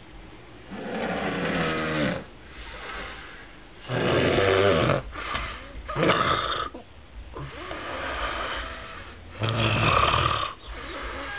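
A sleeping man snoring heavily: a loud snore every two to three seconds, with quieter breaths between.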